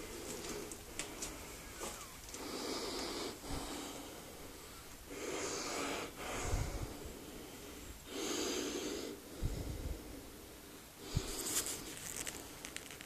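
A person breathing heavily close to the microphone, a breath about every three seconds, with a few small clicks and knocks in between.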